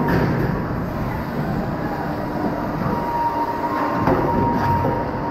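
Inverted roller coaster train rolling slowly through the station, its wheels rumbling and clattering on the steel track with a thin steady whine above. A sharp knock about four seconds in.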